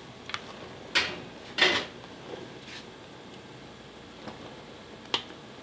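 Brief clatters and knocks of kitchen handling: a light click, then two short scraping rattles about a second in, the second the loudest, and one sharp knock near the end.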